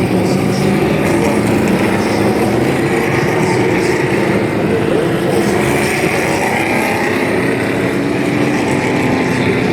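Several NASCAR Truck Series V8 race trucks running together, a loud, steady engine drone at an even pitch with no hard revving.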